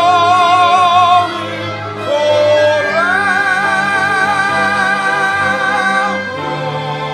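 A solo classical singer holding two long notes with wide vibrato over an instrumental ensemble accompaniment; the voice stops about six seconds in while the instruments sustain on.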